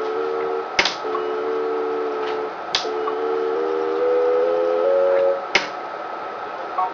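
AMO Sovereign phacoemulsification machine in irrigation/aspiration mode, sounding its aspiration tone: a steady multi-note tone that steps up in pitch several times as vacuum builds during cortex removal, then stops about five seconds in. Three sharp clicks break in, about a second in, near three seconds and near six seconds, over a faint steady high tone.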